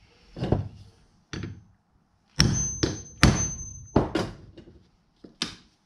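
Claw hammer striking a 4.5 mm hole punch to punch a hole through a leather strap into a wooden block: a series of sharp knocks. Two single blows come first, then a quicker run of heavier strikes in the middle with a thin high metallic ring, then two lighter taps near the end.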